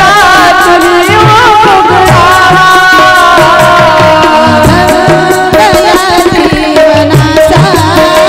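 Indian devotional bhajan music: hand-drum strokes in a steady rhythm under a melody that wavers in pitch, over a held note.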